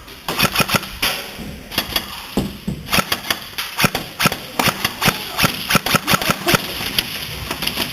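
Airsoft guns firing, a fast, irregular string of sharp cracks that thickens about three seconds in.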